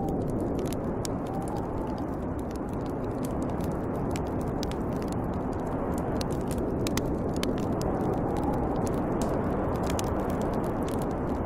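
Snowstorm wind rushing steadily, with a fire crackling over it in many sharp pops. A faint whistle in the wind rises and falls a few times.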